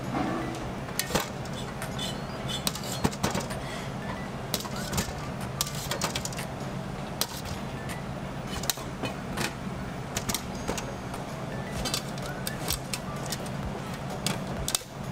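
Background music under scattered sharp clicks and clinks of stainless-steel kitchenware being handled: trays and a perforated metal stock basket with its lid.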